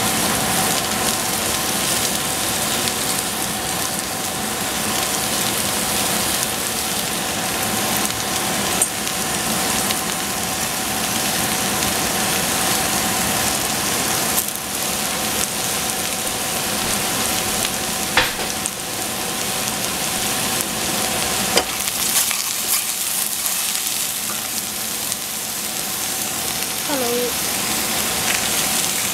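Oyster mushrooms frying in a stainless steel pot: a steady, dense sizzle, with a few sharp clicks as they are turned.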